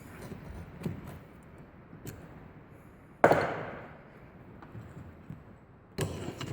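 Hand tools working on a rusted steel bearing housing while the snap ring is being removed: a few light clicks and knocks, then one loud sharp strike a little over three seconds in that rings out briefly, and another knock near the end.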